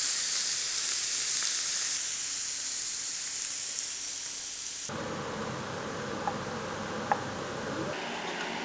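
Marinated goat chops sizzling on a smoking-hot ridged grill pan: a steady, loud, high hiss. About five seconds in the sound changes abruptly to a quieter, duller hiss with a couple of faint clicks.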